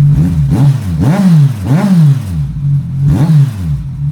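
2014 Kawasaki Ninja 1000's inline-four engine, running with its stock mufflers removed, revved from idle in about four quick throttle blips, each rising and falling in pitch. It settles back to a steady idle near the end.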